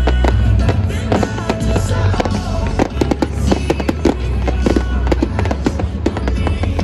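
Fireworks display: a dense run of sharp bangs and crackling pops from bursting shells, over loud music with a heavy bass.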